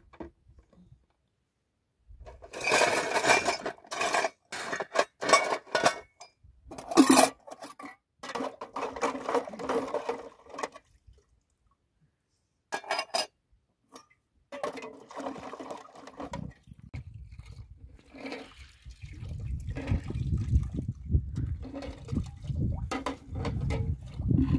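Dishes being washed by hand: water poured and splashing over metal pots, bowls and cups, with sharp clinks as they knock together. Near the end a low rumbling noise takes over.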